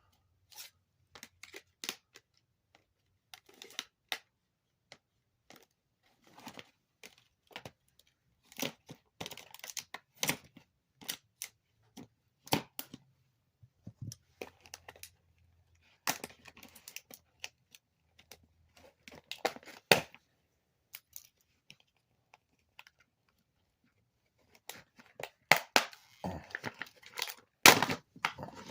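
Hand tools working on a salvaged appliance motor's housing: irregular clicks, knocks and short scrapes, with a denser, louder run of them near the end.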